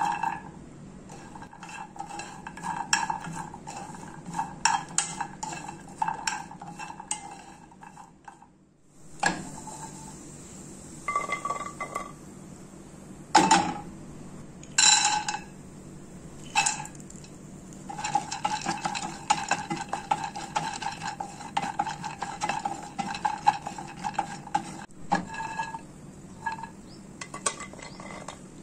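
Mixed nuts (almonds, cashews, walnuts) stirred while dry-roasting in a frying pan. The spatula and nuts clatter against the pan in quick runs of clinks and scrapes, and the pan rings, over a steady low hum.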